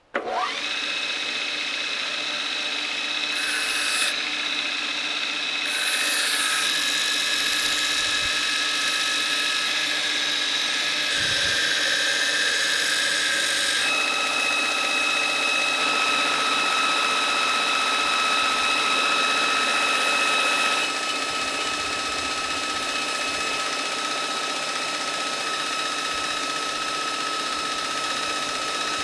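Belt grinder running with a steady motor whine while a forged steel knife blade is ground against the abrasive belt, the grinding hiss changing every few seconds as the blade is moved and pressed. It comes on abruptly at the start.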